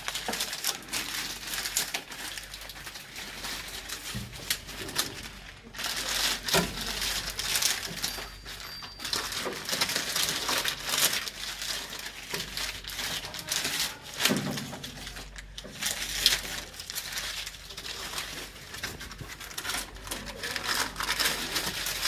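Irregular rustling and crinkling handling noise with many small clicks and knocks.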